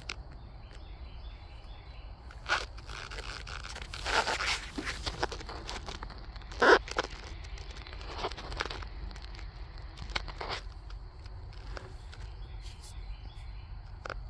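Outdoor background with a steady low rumble, broken by a few short scrapes and crunches; the loudest is a sharp knock a little after halfway.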